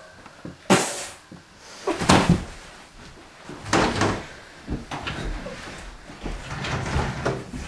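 A few knocks and thuds with rustling, three louder ones spread over the first four seconds, then a low rumble with smaller knocks.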